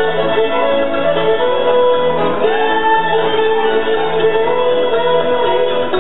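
Country music playing steadily, with guitar and fiddle.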